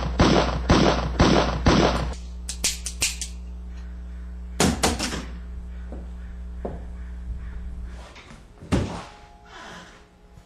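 Pistol fired rapidly, about eight sharp shots in two seconds over a steady low hum. Then come a few scattered lighter knocks and one heavy thud near the end.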